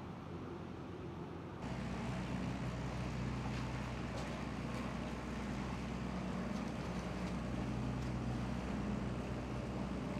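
A widebeam boat's diesel engine running steadily under way, a low even hum with a steady hiss over it, louder from about a second and a half in.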